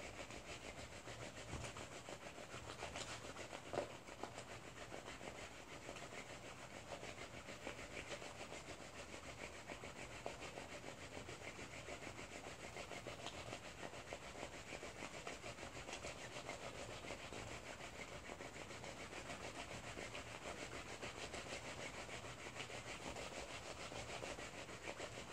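Soapy wool-wrapped bar of soap rubbed rapidly back and forth by hand over a ridged tray: a steady soft wet rubbing, the wool being worked so it shrinks and felts onto the soap. A single light knock about four seconds in.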